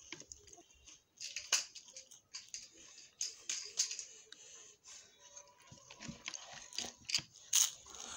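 Close-up chewing of a crisp wafer biscuit: irregular crackly crunches and wet mouth noises, with the loudest crunch near the end as a fresh bite is taken.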